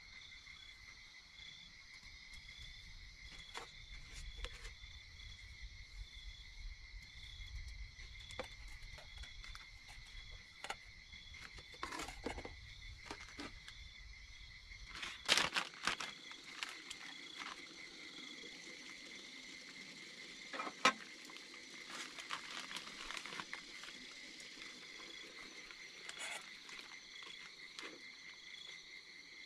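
Steady chorus of insects, with a faint pulsing note among the steady ones. Scattered clicks and knocks of handling sound over it, the loudest about halfway and again about two-thirds in, and a low rumble that stops about halfway.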